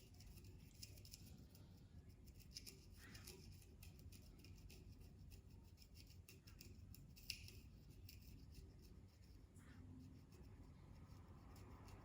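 Faint, irregular scratching and clicking of the sharp edge of a Victorinox fine screwdriver scraping limescale off a surface, in short strokes over a low, steady room hum.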